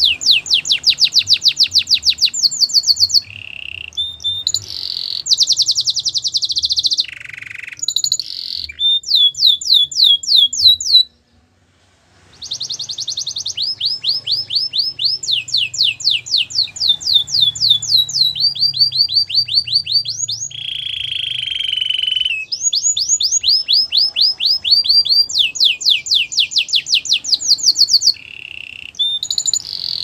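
Domestic canary singing: a long song of fast trills, each a rapid run of repeated sweeping notes, switching to a new trill every second or two. A lower, rougher phrase comes about two-thirds of the way in, and the song breaks off for about a second near the middle.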